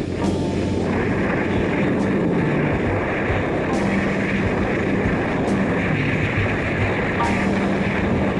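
BMW R1200RT motorcycle's flat-twin boxer engine running at a steady cruising speed, mixed with a continuous rush of wind and road noise.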